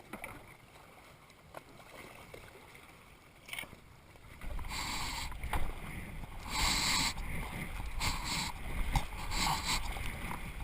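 Kayak paddle strokes in water: swishing and splashing about once a second, starting about four seconds in after a quiet stretch with a few small knocks.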